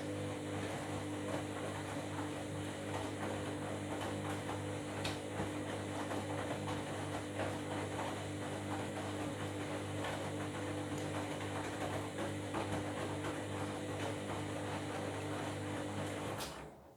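Washing machine running: a steady motor hum under a busy noisy texture, cutting off suddenly near the end.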